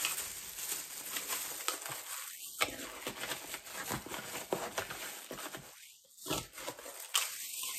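Plastic bags crinkling and rustling as packs of clear lip gloss wand tubes are handled, a run of small crackles with short pauses.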